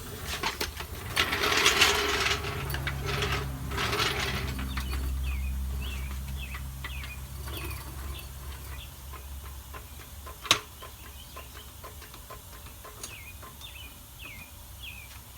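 A jack being worked to raise the van's rear suspension and wheel assembly, with mechanical rattling and ratcheting, the loudest stretch in the first four seconds, and a single sharp click about ten seconds in. Birds chirp faintly in the background.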